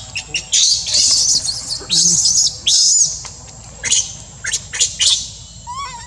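Infant macaque crying in a run of shrill, high-pitched screams, longest and loudest in the first three seconds, then shorter separate cries. It is the distress crying of a baby monkey left on its own.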